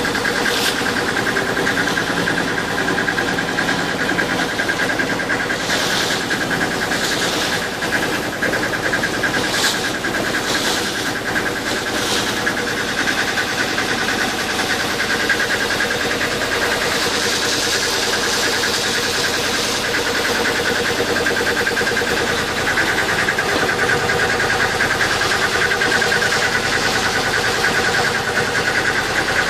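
A boat's engine running steadily at an even, rhythmic pace, heard from on board the vessel. A few brief hissing noises come over it between about six and twelve seconds in.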